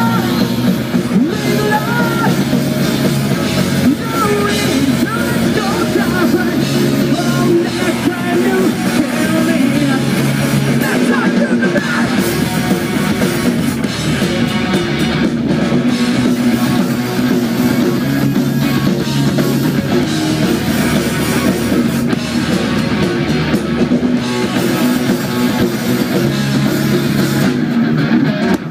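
Live rock band playing loudly through the stage PA: distorted electric guitars and a drum kit, with singing.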